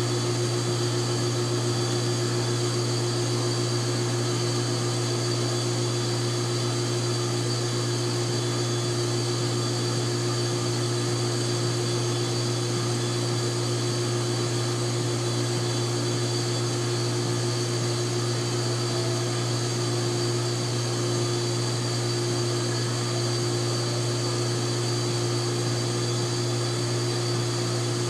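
A 3 kW induction heating power supply running at about 2.5 kW: a steady machine hum with a low drone and a few steady higher tones that do not change.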